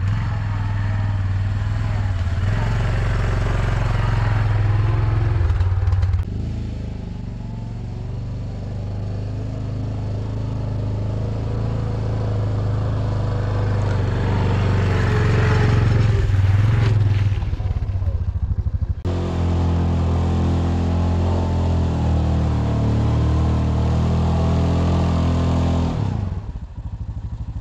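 Quad ATV engine running steadily under load as it tows a loaded firewood trailer, its note changing abruptly a few times and growing louder about halfway through.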